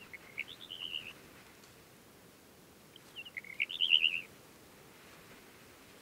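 Male Red-rumped Wheatear singing two short warbled song phrases, the second one louder.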